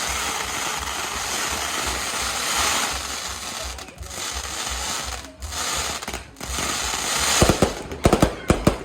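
Fireworks going off: a dense, steady crackling hiss for about seven seconds, then a rapid run of sharp bangs, several a second, near the end.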